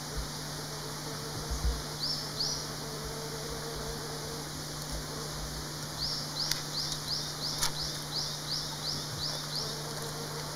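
A bird calling in the background: short high chirps, two about two seconds in, then a rapid run of about ten at roughly three a second over the second half. Under them runs a steady low hum, with a couple of faint clicks.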